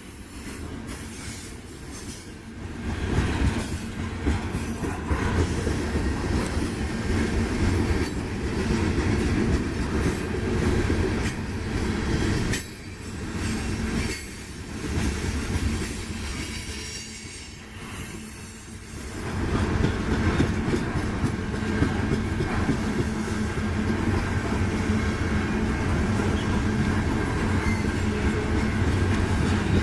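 A freight train's cars rolling past, their steel wheels rumbling and clattering on the rails. The sound eases off briefly twice, about halfway through and again a few seconds later.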